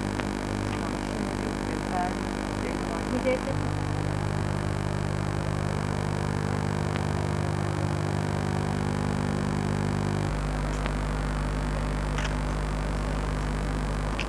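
Steady electrical mains hum and buzz on the recording's soundtrack, with no other sound. Its tone changes abruptly about three and a half seconds in and again about ten seconds in.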